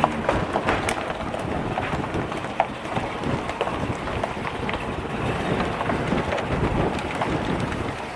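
Steady rushing noise of winter-storm wind, with many small scattered ticks and clicks over it.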